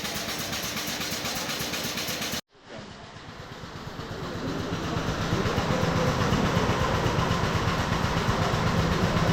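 Industrial machinery running steadily with a fast, even pulse. The sound cuts off sharply about two and a half seconds in, then a similar machine noise with a low hum fades back in and grows louder.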